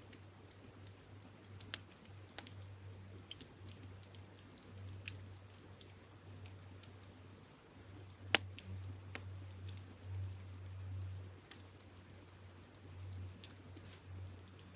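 Wood campfire crackling: scattered sharp pops and snaps at irregular intervals, the loudest about eight seconds in, over a low steady rumble.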